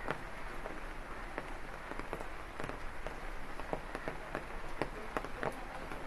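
Rain falling steadily, with many close drops striking at irregular moments as sharp ticks.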